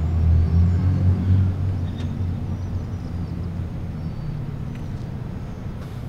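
Low outdoor rumble, loudest in the first second or two, then steadier and quieter.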